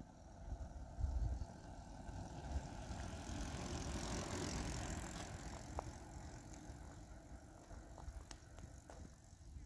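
Touring bicycle loaded with panniers passing close by: a tyre hiss on asphalt that swells about four seconds in and fades as it rides away. Low wind buffeting on the microphone near the start.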